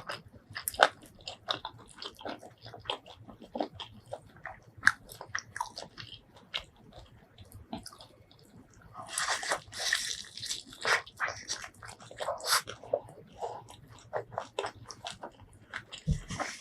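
Close-miked eating of crunchy fried chicken: sharp crunchy bites and chewing with wet mouth clicks, with a denser run of crunching from about nine to eleven seconds in.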